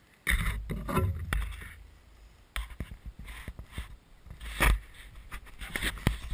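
Handling noise picked up by a GoPro mounted on a quadcopter as it is lifted and moved about: irregular bumps, scrapes and knocks over a low rumble of wind buffeting the microphone. The quadcopter's motors are not running.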